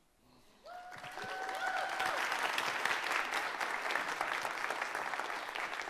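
Church congregation applauding: it starts about half a second in, swells to a full, dense clapping within a second or so, and is beginning to ease off at the end.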